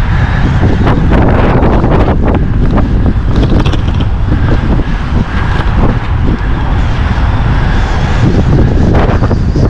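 Heavy wind buffeting on the microphone of a camera riding on a fast-moving track bike, a continuous low rumble with scattered short knocks and rattles from the road.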